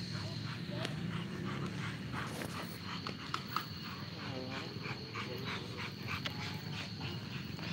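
Outdoor yard ambience with a steady high insect drone and many scattered short chirps, and a dog whining briefly about four seconds in.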